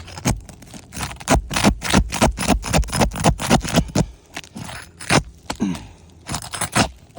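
Roof shingles being scraped and pried at with a tool in a quick run of short strokes, about four or five a second, then a few scattered ones. The shingles are tearing up rather than coming off whole.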